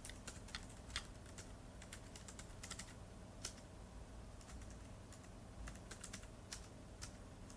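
Typing on a keyboard: faint, irregular key clicks, a few a second, with short pauses between runs.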